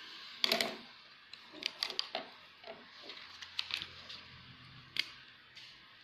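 Light clicks, taps and paper rustles of a ruler, a sheet of drawing paper and a pen being handled on a wooden desk. The loudest tap comes about half a second in, and scattered smaller clicks follow.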